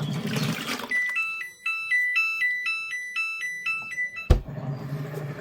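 HAVA T01 portable washing machine's control panel playing its short electronic beep tune, a quick run of alternating high and lower notes. A sharp click sounds about four seconds in, as the tune ends.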